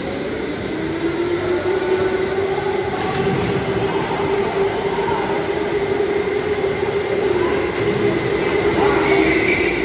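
Electric go-karts running around a track: a steady motor whine that wavers in pitch as the karts speed up and slow, over tyre noise. The whine grows brighter near the end as karts pass close by.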